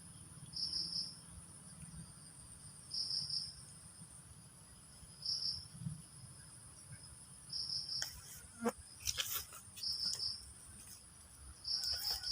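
Insects chirping: short pulsed chirps repeating about every two and a half seconds over a steady high-pitched insect drone, with a few clicks and rustles in the second half.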